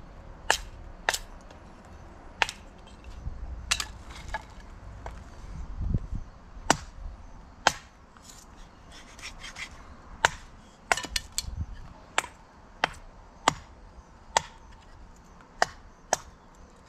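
Hatchet with a hickory handle chopping thin wooden strips on a log chopping block, splitting kindling: a string of sharp chops and wood cracks at uneven spacing, now single, now several in quick succession.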